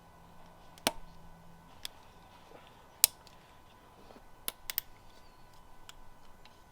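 Sharp, scattered clicks and taps of hand tools on transmission parts while snap rings and detents are worked out: about eight in all, the loudest about three seconds in and a quick run of three a little later.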